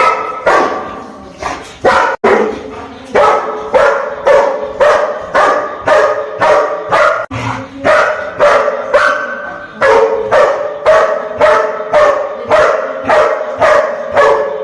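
German shepherd barking over and over at a bird, about two loud barks a second.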